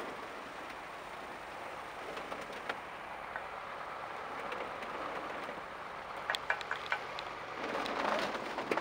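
A heavy truck's diesel engine running steadily, with several sharp knocks about six to seven seconds in and a louder swell of noise shortly before the end.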